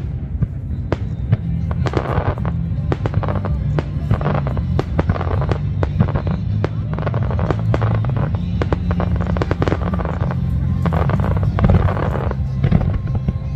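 Fireworks bursting: many sharp bangs, some in quick clusters, over music playing.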